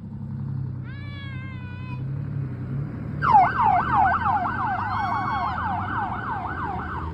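Vehicle siren on its rapid yelp setting, sweeping quickly up and down about four times a second, starting about three seconds in over a low truck engine rumble. A short wavering electronic tone sounds about a second in, before the yelp starts.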